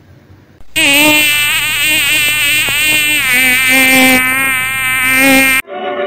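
Loud, buzzy cartoon sound effect: a nasal tone with a wavering, stepping pitch that starts about a second in and cuts off sharply near the end.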